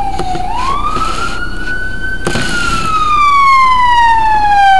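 Ambulance siren wailing, its pitch sweeping quickly up and then sliding slowly down, twice, and growing louder in the second half as it comes closer. A short click about halfway through.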